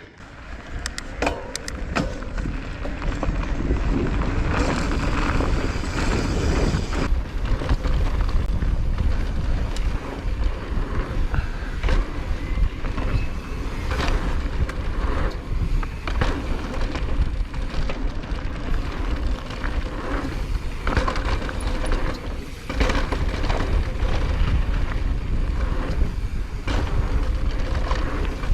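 Electric mountain bike descending a dirt singletrack at speed: wind buffeting the microphone, tyres rolling over the dirt, and frequent sharp rattles and knocks from the bike over roots and bumps. It builds up over the first few seconds.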